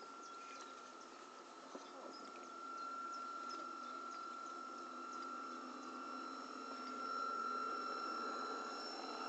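Radio-controlled Queen Mary model ship's drive motor running with a steady whine, getting louder from about the middle on as the model passes close. A few short bird chirps in the first couple of seconds.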